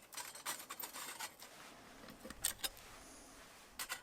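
Scattered light clicks and scrapes of tinder and wood being handled and set into a small metal bush box wood stove.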